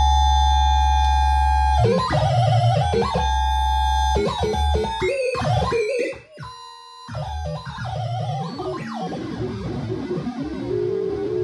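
Electronic music tones from an EMS Vocoder 5000 as its front-panel knobs are turned. A held chord with a deep bass note breaks off about two seconds in into shifting, stepping tones. The sound drops almost away for a moment around six seconds, then settles into a new held tone near the end.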